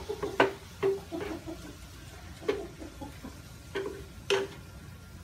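Spatula stirring stir-fried bitter gourd in a frying pan, knocking against the pan about half a dozen times, the pan ringing briefly after some knocks; the loudest knocks come about half a second in and near the end.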